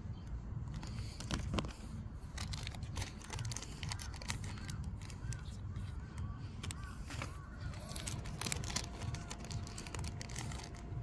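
Foil booster-pack wrappers tearing and crinkling and trading cards being handled, a dense run of small crackles and clicks.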